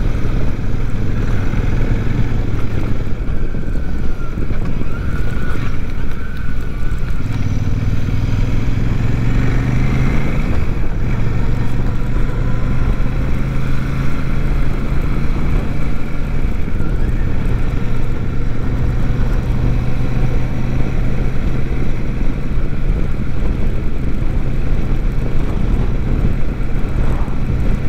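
Royal Enfield Super Meteor 650's parallel-twin engine running on the move, with wind noise on the microphone. The engine note climbs as the bike accelerates from about seven to ten seconds in, then holds steady at a cruise.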